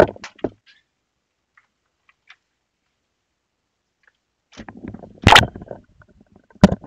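Sharp bangs from a riot outside: a couple at the start, then quiet, then the loudest bang about five seconds in and another near the end.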